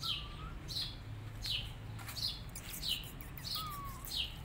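A bird chirping over and over: about seven short calls, each falling sharply in pitch, evenly spaced.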